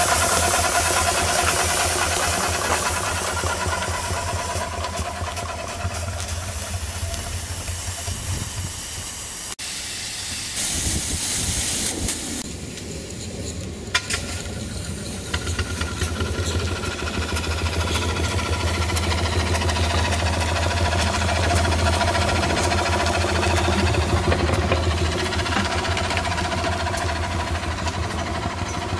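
Miniature live-steam traction engine running as it drives, hissing steam over a steady low mechanical drone. The hiss is loudest in the first few seconds and again briefly about ten seconds in.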